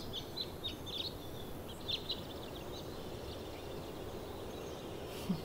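Small birds chirping in short, quick high notes over a steady outdoor background hiss, the chirps thickest in the first two seconds or so and sparser after.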